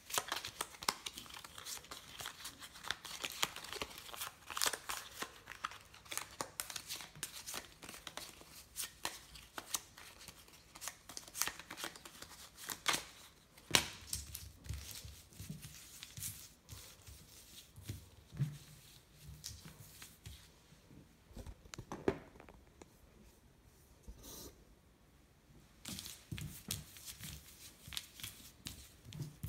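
Foil trading-card pack torn open and crinkled by hand, a dense crackling through the first half. After that come sparser sharp taps and rustles as the cards are handled and set down on a stone countertop.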